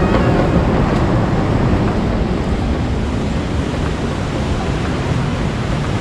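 Ocean surf breaking and washing up a sandy beach: a steady, even rush, mixed with wind buffeting the microphone.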